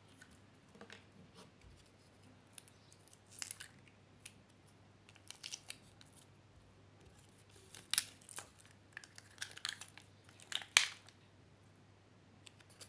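Clusters of sharp, sticky crackling clicks as slime is squeezed from a small plastic bottle and pressed onto a puddle of slime with foam beads. The loudest clusters come about eight and eleven seconds in.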